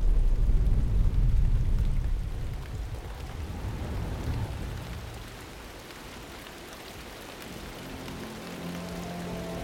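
Deep rolling thunder rumble that fades away over the first five seconds, leaving a steady hiss of rain. Soft sustained music tones come in near the end.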